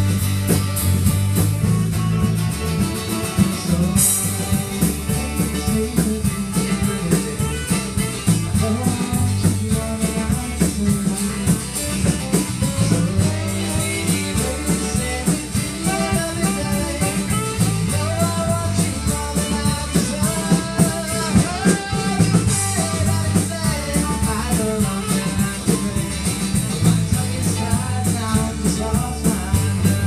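Live rock band playing: drum kit keeping a steady beat under bass guitar and strummed acoustic and electric guitars, with a wavering melody line over them, most prominent in the middle.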